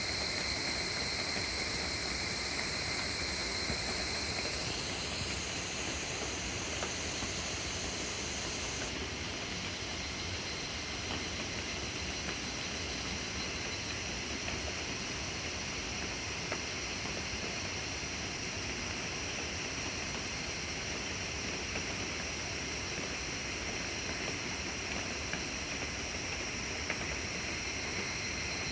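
Steady rain falling on woodland, an even hiss with a few faint drop ticks.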